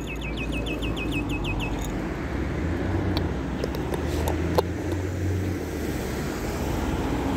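Low, steady rumble of road traffic, growing slightly louder. Over it, a bird's fast trill of short repeated high notes runs for the first second and a half, and a few sharp clicks come through near the middle.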